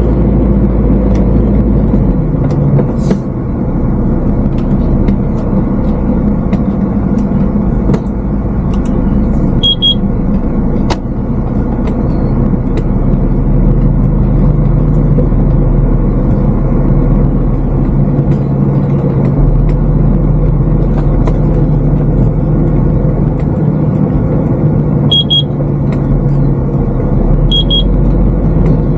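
Heavy diesel lorry engine running steadily while the articulated truck drives slowly on a rough landfill track. A short double beep sounds three times.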